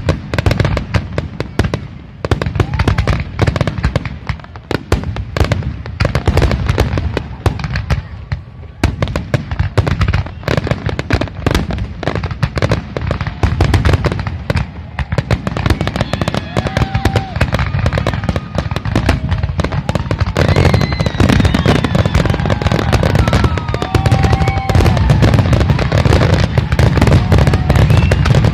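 A fireworks finale barrage: aerial shells bursting in rapid, overlapping bangs with crackle, almost without a break. From about halfway in, short whistles sound over the bangs, and the barrage gets louder toward the end.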